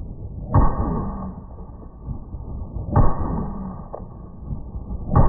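Three shots from a Kalashnikov USA Komrad 12, a semi-automatic AK-pattern 12-gauge shotgun, fired slowly about two and a half seconds apart, the last near the end. It is loaded with slugs, and each report rings out briefly.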